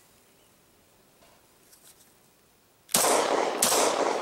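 Two shots from a Glock 20 pistol in 10mm Auto with a condom stretched over its muzzle, fired about two-thirds of a second apart near the end, each ringing out with a long echo tail.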